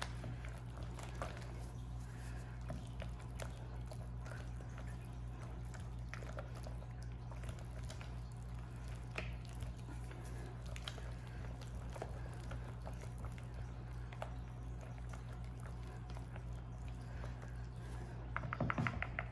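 Wire whisk stirring thick cold process soap batter in a plastic bowl, working the partly set batter loose: soft wet stirring with scattered light ticks of the wires against the bowl, over a steady low hum. Near the end the strokes speed up into a quick regular run.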